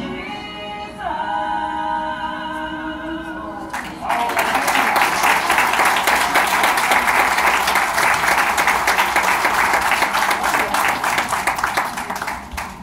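A recorded music track ends on a held chord. About four seconds in, a congregation breaks into loud applause and cheering, which fades off near the end.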